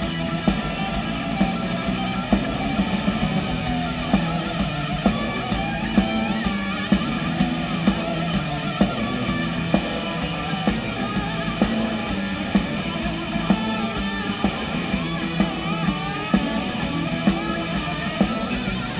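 Blues-rock band playing live: a lead electric guitar solos with bent, wavering notes over electric bass and a steady drum beat, with no vocals.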